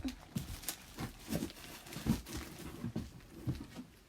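Handling noise as items and packaging are taken from a box: a run of short knocks, clicks and rustles.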